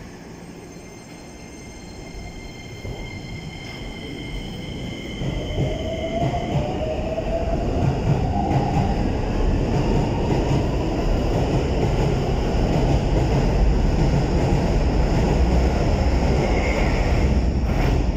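Keikyu New 1000 series electric train pulling out of the station. Its traction motors whine, rising in pitch as it accelerates through the first half. The rumble of wheels on the rails builds steadily louder as the cars run past close by.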